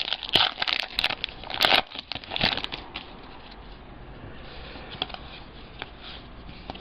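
A 2014 Topps Gypsy Queen card pack wrapper crinkling and tearing as it is opened: a dense run of crackles over about the first three seconds, then faint rustling and clicks as the cards are handled.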